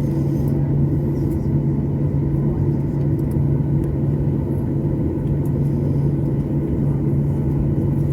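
Steady low hum of an airliner cabin parked at the gate, the drone of the aircraft's air-conditioning and on-board systems running.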